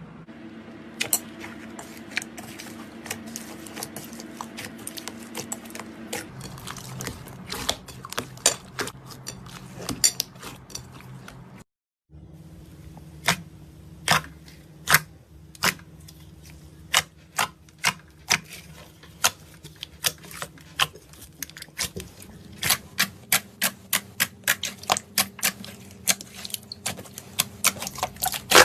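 Slime being worked by hand, giving many sharp clicks and pops that come irregularly and then faster near the end, over a low steady hum.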